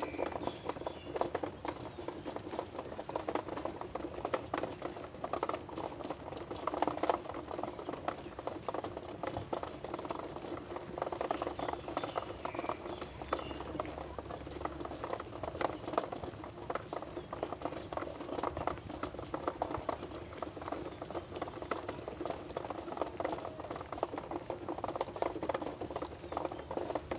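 Continuous rattling clatter of small wheels rolling over a paved path, a dense run of fast irregular clicks over a steady low hum.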